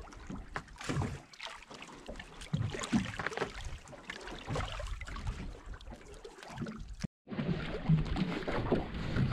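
Water sloshing and lapping against a small fishing boat, with irregular splashes and knocks. There is a brief break in the sound about seven seconds in.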